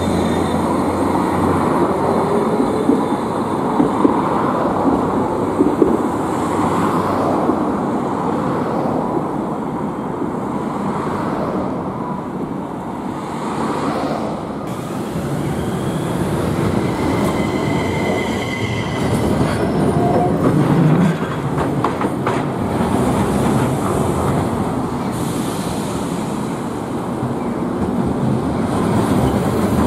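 Electric street trams running on street track: steady rolling wheel-on-rail noise with a rising motor whine at times and scattered clicks over rail joints.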